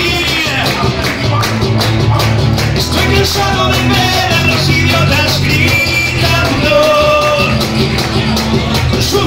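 Live rock song played by a small band, with acoustic guitar and a man singing.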